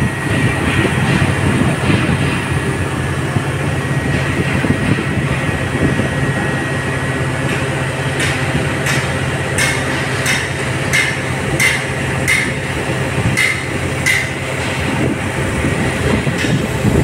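Mobile crane's diesel engine running steadily during a lift. About halfway through comes a run of roughly eight short sharp clicks, about one every three-quarters of a second.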